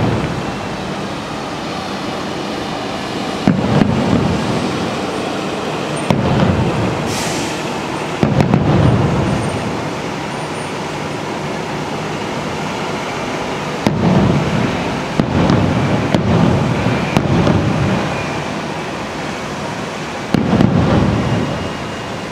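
Aerial fireworks shells bursting: about eight low booms, each rumbling for about a second, some coming in quick succession, over a steady background noise.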